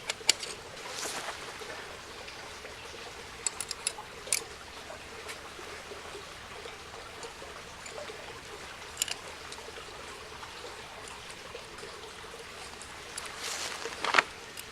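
Wood fire burning with a steady hiss, broken by sharp crackles and pops now and then: a cluster of several around a quarter of the way in, and the loudest pop near the end.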